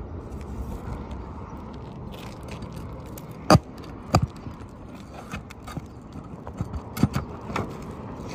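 Hand tool knocking and prying out roofing nails under asphalt shingles: four sharp metallic knocks, two about halfway through and two near the end, over a steady low rumble.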